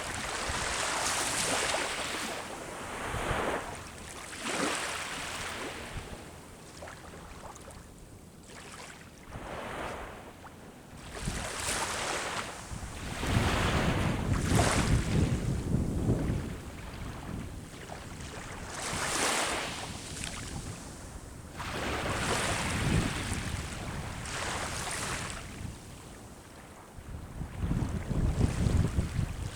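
Sea waves breaking and washing up the shore, surging and falling back every few seconds, with wind rumbling on the microphone.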